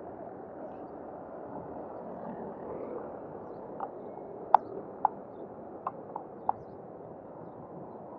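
Power wheelchair riding across a city street, heard muffled: a steady rumble of street and wheel noise. About halfway through come six sharp clacks in under three seconds, the loudest a little after four seconds in.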